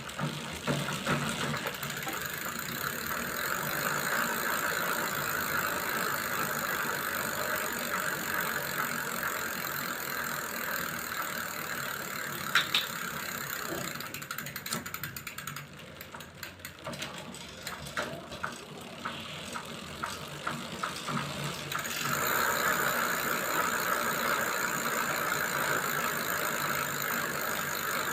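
Mountain bike chain and gears turning while the rear wheel spins, a steady dry running and rattling sound from a drivetrain clogged with mud and in need of cleaning and lube. Partway through, the steady sound drops to separate ratchet clicks of the freewheel as the wheel coasts. It then picks up again.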